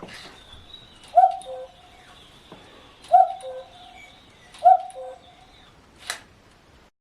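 Wooden kit cuckoo clock sounding its two-note cuckoo call three times, each call a higher note dropping to a lower one, about a second and a half apart. A sharp click follows about six seconds in.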